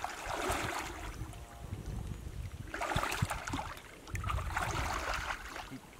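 Muddy pond water sloshing and swishing as a mosquito net is dragged through it by people wading, in surges near the start, about three seconds in, and again a second or so later, over a low rumble.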